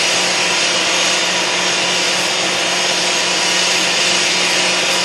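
Steady hum and hiss of a running motor, unchanging in level throughout.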